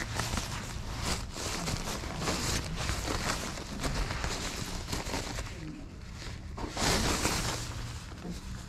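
Crinkly nylon windbreaker and its clear plastic bag rustling as they are handled and the jacket is pulled out and unfolded, with a louder swell of rustling about seven seconds in.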